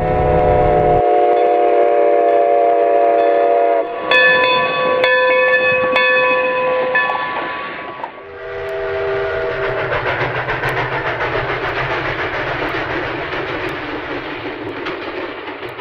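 A train's multi-note horn sounds in long blasts, changing chord about four seconds in and again briefly after eight seconds. Then the train runs on with a steady rushing, pulsing rumble that fades at the very end.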